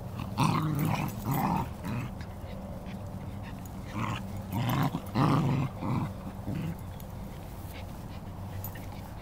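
Cairn terriers giving short barks and growls while they play together. There are two in the first two seconds, then about five more between four and seven seconds in.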